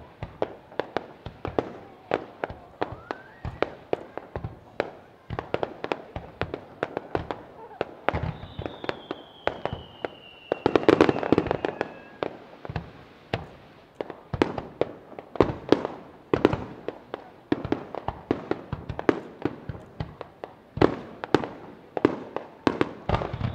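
Fireworks display: a rapid, uneven string of sharp bangs from shells launching and bursting, two or three a second. A denser, louder flurry comes about eleven seconds in, with a long falling whistle running across it.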